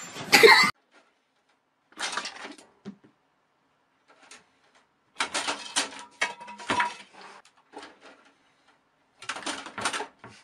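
A loud sudden burst about half a second in, then three spells of short, irregular clattering and scratching as a cat claws and scrambles at the side of a plastic computer tower case.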